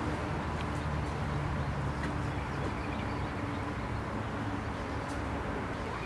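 Steady low outdoor background rumble, with a few faint, short high chirps.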